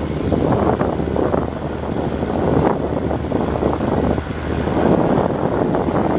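Steady low drone of a boat engine under wind buffeting the microphone, with the rush of choppy river waves.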